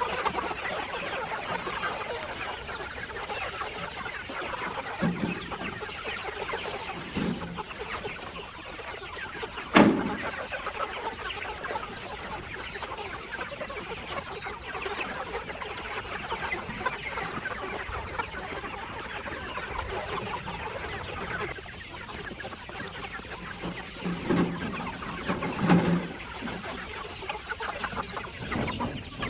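A flock of free-range chickens clucking steadily, with a few louder calls standing out. A single sharp knock about ten seconds in.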